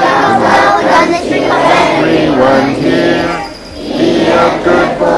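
A group of young children singing together, with held notes and a short break about three and a half seconds in.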